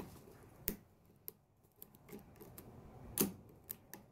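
A handful of faint, sharp metallic clicks from a lock pick and tension wrench working the pins of a custom lock during single-pin picking; the loudest click comes about three seconds in.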